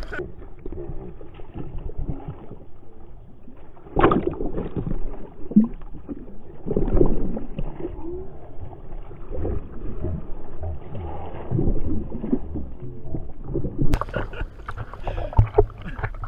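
Sea water sloshing and splashing against a hand-held action camera at the waterline, dull and muffled, with several louder splashes as waves wash over it.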